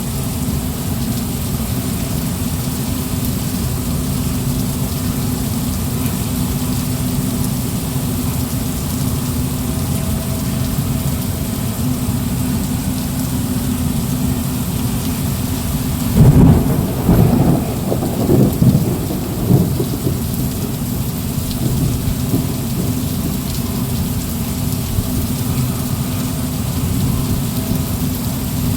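Thunderstorm: steady heavy rain throughout, and about halfway through a loud clap of thunder that rolls on in several rumbling swells for about four seconds.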